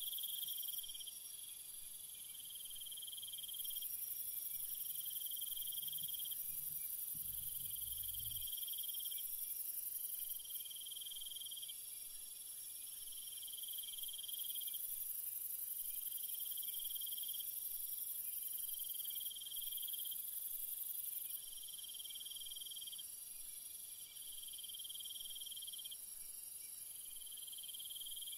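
Insect chorus: a steady high-pitched hiss of insects with a cricket trilling in repeated phrases of about two seconds, separated by short breaks. A brief low rumble about six to eight seconds in.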